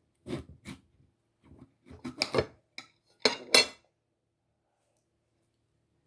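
Knife cutting through a lemon: a run of short knocks and scrapes of the blade, the loudest two a little past halfway, then it stops.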